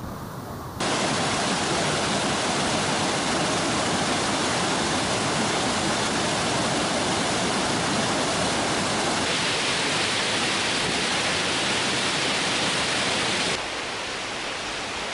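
Waterfall: a loud, steady rush of falling water that sets in abruptly about a second in, turns hissier from about nine seconds and drops in level near the end.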